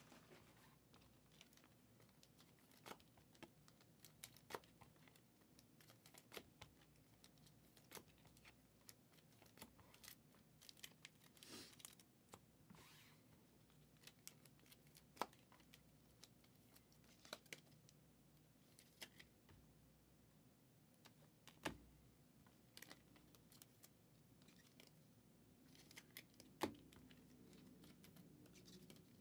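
Faint crinkling and tearing of plastic cello-pack wrappers and handling of trading cards, with scattered light clicks.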